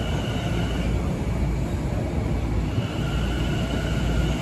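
Long Island Rail Road electric multiple-unit train rolling past a station platform: a steady, loud rumble of wheels on rail, with faint high steady tones above it.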